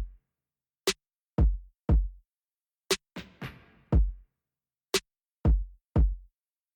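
Background electronic music: a drum-machine beat of a short sharp hit followed by two deep kicks that fall in pitch, repeating about every two seconds.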